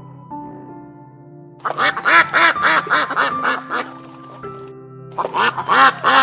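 Ducks quacking in two fast runs of repeated quacks, the first starting about one and a half seconds in and the second near the end, over background music.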